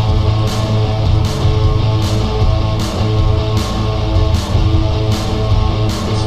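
Rock music with a guitar over a steady beat, with a drum or cymbal hit about every three-quarters of a second.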